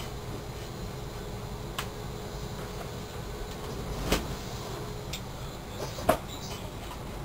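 A steady low hum with a few sharp creaks and knocks as a man shifts his weight on a large latex balloon on a bed. The loudest two come about four and six seconds in.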